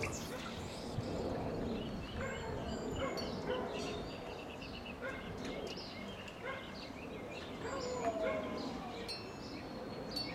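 Birds chirping and singing, with runs of short, quickly repeated notes.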